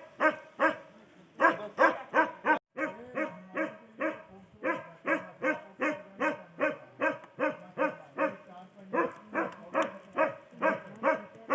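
A dog barking over and over at a quick, steady rate, about three fairly high-pitched barks a second, with short breaks near the start.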